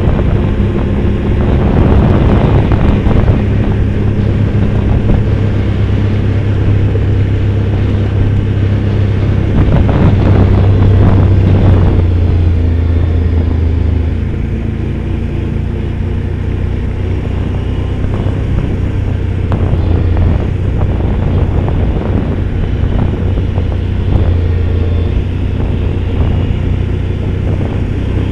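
Off-road vehicle engine running steadily while driving over a rough forest track, with wind noise on the microphone and occasional knocks and rattles from the bumpy ground. The engine note eases off slightly about halfway through.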